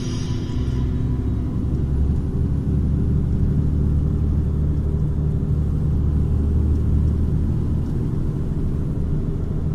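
Steady low rumble of a car's engine and tyres heard from inside the cabin while driving along a road.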